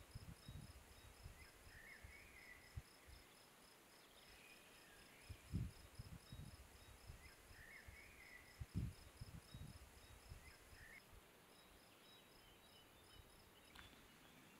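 Quiet meadow ambience: an insect trilling high in a steady, even pulse, a songbird singing short phrases every few seconds, and three low dull thumps of wind or handling on the microphone.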